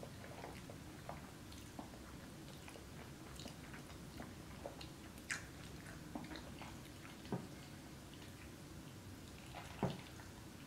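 Faint close-up eating sounds: chewing a mouthful of creamy fettuccine alfredo, with scattered small wet mouth clicks. A few sharper clicks come through, the loudest near the end as a metal fork digs into the glass bowl of pasta.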